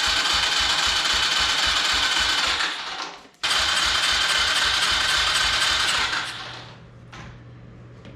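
250cc single-cylinder mini bike engine being cranked over by its starter in two long runs with a brief gap, an even chug of about five compression strokes a second, never catching: the engine will not start.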